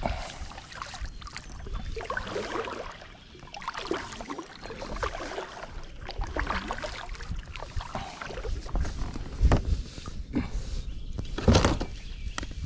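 Water lapping and splashing around a small plastic kayak, with two sharp knocks near the end.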